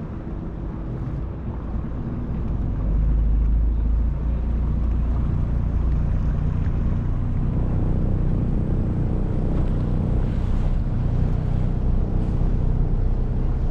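Motorboat engine running steadily, getting louder about three seconds in and holding there.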